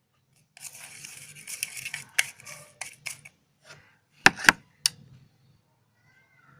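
Scraping and rustling of a stirrer working homemade glue-and-salt slime in a container, followed by three sharp clicks.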